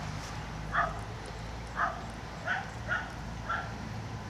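A dog barking repeatedly: five short, sharp barks, about one a second, over a steady low rumble.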